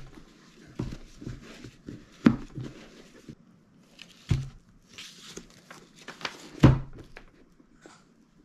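Red Wing 3343 Blacksmith leather boot being handled while a cloth rubs conditioner into it: cloth rubbing and rustling on the leather and paper, with several sharp thunks as the boot is tipped and set down, the loudest about two seconds in and near the end.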